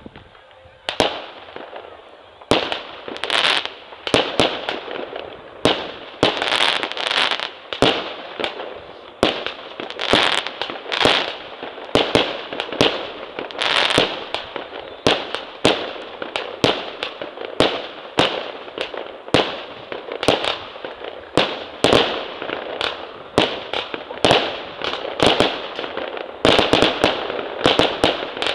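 Aerial fireworks firing shot after shot: a long run of sharp bangs at about two a second, coming thicker near the end.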